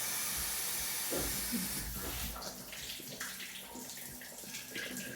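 Water spraying from a shower head, a steady hiss that slowly grows quieter.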